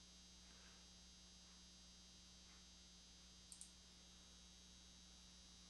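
Near silence with a faint steady electrical hum, broken about three and a half seconds in by a quick pair of faint computer mouse clicks.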